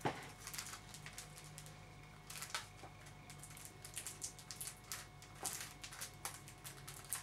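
Plastic shrink wrap on a CD jewel case crinkling and crackling in irregular clicks as it is handled and picked at with the fingers.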